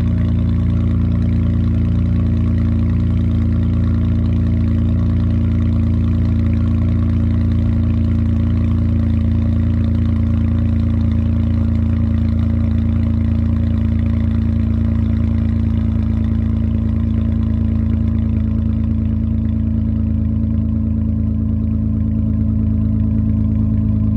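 Honda Odyssey's V6 engine idling steadily, heard through its exhaust, with an even, unchanging note.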